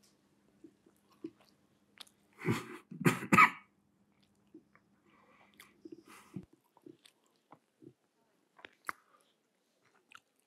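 A person coughs three times in quick succession about two and a half seconds in. Around it are small scattered clicks and chewing sounds from people eating and drinking tea, over a faint steady hum.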